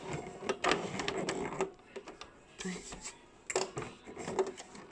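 Basic domestic sewing machine stitching in a short run of about a second and a half, followed by a few separate clicks and knocks.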